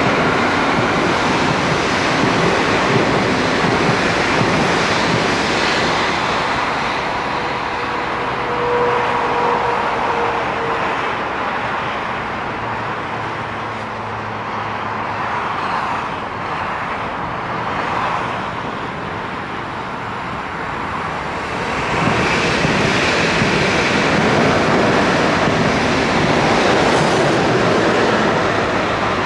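Electric passenger trains running on a multi-track mainline, a steady rumble of wheels on rails. It eases off in the middle and swells again about two-thirds of the way in as a white ICE train passes close by, with a brief steady tone about nine seconds in.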